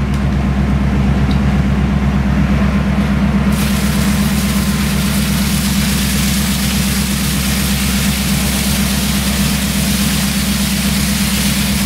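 A ship's fire pump running with a steady low hum, and from about three and a half seconds in the loud rushing hiss of its seawater jet washing over the steel deck.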